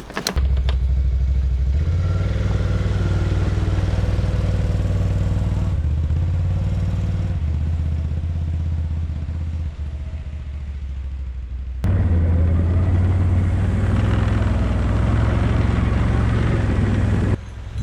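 ATV engine running under load while driving through snow, its note stepping up and down in pitch as the speed changes. The sound changes abruptly about twelve seconds in and again just before the end.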